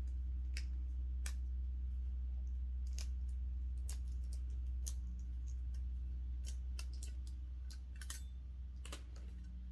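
Irregular light clicks and taps from hands handling a new circular saw and its blade, about a dozen spread unevenly, over a steady low hum.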